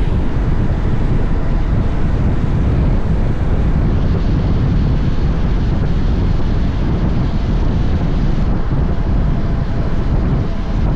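Steady wind rush over the microphone of a motorcycle-mounted action camera while riding, with the Honda X-ADV's 745 cc parallel-twin engine running underneath.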